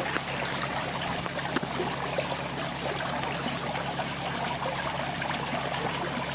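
Water pouring steadily into a plastic barrel, with small splashes as a landing net is swept through the water.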